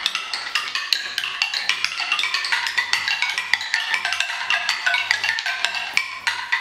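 Marbles dropping down a Kaper Kidz Calm and Breezy wooden marble run sound tree, striking leaf after leaf in quick succession; each leaf rings a different tone, and the tones step gradually lower.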